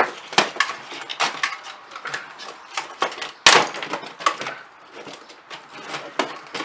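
Plastic parts of an old Polaroid instant camera clicking and knocking as they are pried and pulled apart by hand, with one louder click about three and a half seconds in.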